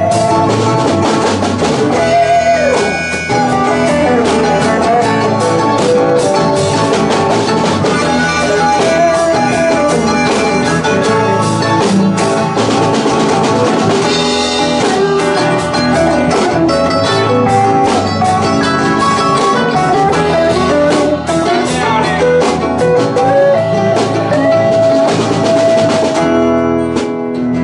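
Live band playing an instrumental break: an electric guitar lead with bent, sliding notes over strummed acoustic guitars, bass and a drum kit.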